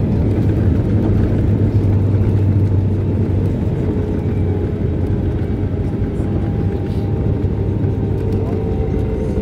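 Steady low cabin rumble of an Airbus A320neo rolling along the runway after touchdown, with no reverse thrust, carrying a faint steady whine. The rumble eases slightly as the aircraft slows.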